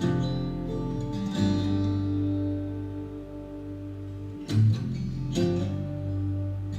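Acoustic guitar music, strummed chords and sustained notes, playing back through a 12-inch speaker driven by an NXGEN APS-300 Class D power amp module.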